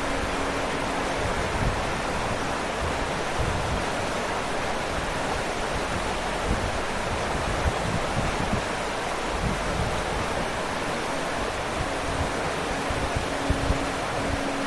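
Waterfall: falling water rushing steadily, with an even hiss and a low rumble that swells and eases.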